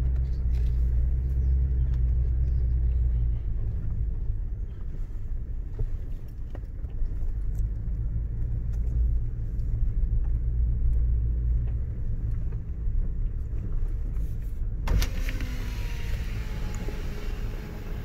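Steady low rumble of a vehicle driving slowly on a dirt road, heard from inside the cab. About fifteen seconds in, a side window opens and outside air noise comes in, making the sound brighter.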